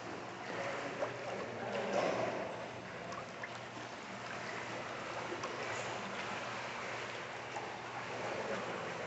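Pool water sloshing and splashing as a person works their legs through the water in a heel-touch exercise, with a steady low hum underneath.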